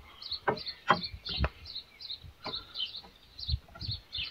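A small bird chirping over and over, short high chirps about three times a second, with a few dull knocks in between.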